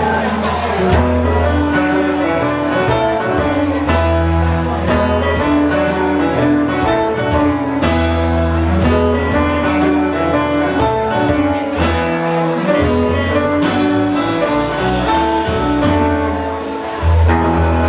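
Live rock band playing an instrumental jam: guitar lines over a strong bass and a steady beat.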